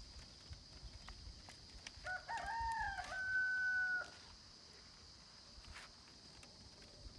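A rooster crowing once, about two seconds long, starting about two seconds in: a short rising opening, then a long held note that cuts off.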